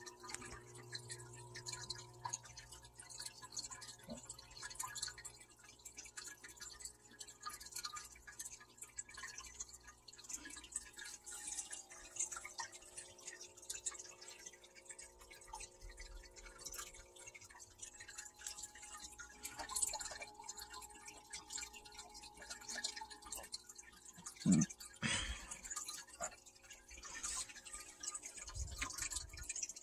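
Faint water dripping and trickling in a home aquarium, with many light ticks, over a low steady hum. One louder bump comes late on.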